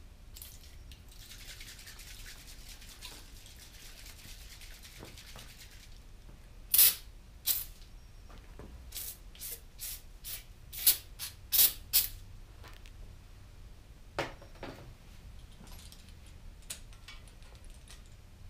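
An aerosol spray hissing for about five seconds, then a run of about a dozen sharp metallic clicks and knocks as a cylinder hone and its drill are handled in the bores of a cast-iron small-block Chevy 400 engine block.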